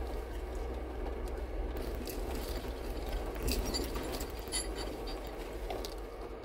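4x4 vehicle crawling up a rocky trail: a steady low engine and drivetrain hum, with a run of sharp clicks, ticks and scrapes through the middle few seconds.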